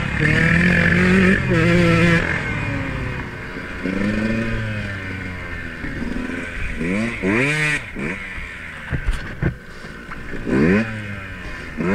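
Dirt bike engine running under the rider, its pitch rising and falling with the throttle in several revs, with a few sharp knocks about three-quarters of the way through.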